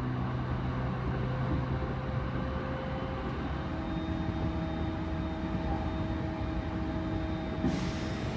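Moving electric train heard from inside the carriage: a steady running rumble with a few steady motor tones, which change pitch about three and a half seconds in. A brief hiss comes near the end.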